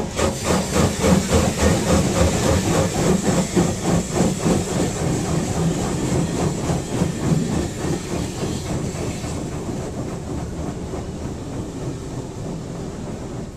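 Automatic car wash machinery running, heard from inside the car: a steady hiss of spray with a fast, even clatter of about five strokes a second, fading gradually.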